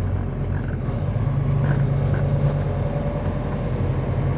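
Semi-truck diesel engine running with a steady low hum, slightly stronger from about a second in.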